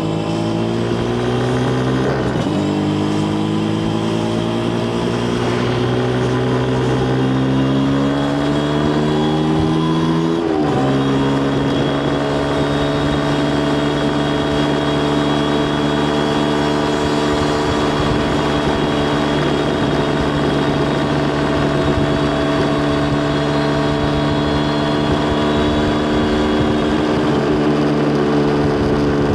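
Yamaha TZR250 1KT's two-stroke parallel-twin engine pulling hard through the gears. Its pitch climbs, drops at an upshift about two seconds in, climbs again to another shift about ten seconds in, then holds a steady note at cruise before the throttle eases off near the end.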